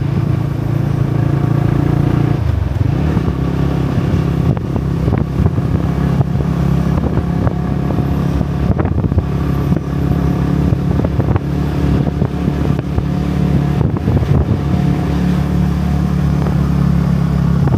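Motorbike engine running steadily while riding, its pitch dropping and picking up again about two and a half seconds in and shifting once more near the end.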